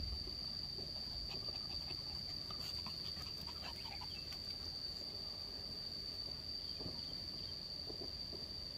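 Insects giving a steady, unbroken high-pitched drone, with faint scattered rustles and ticks around it, mostly in the first half.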